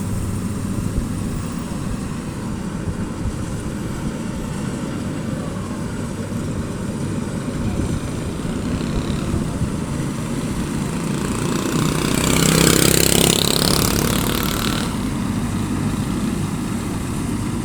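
Farm machinery engine running steadily during a rice harvest, with a louder surge about twelve seconds in that lasts two or three seconds before settling back.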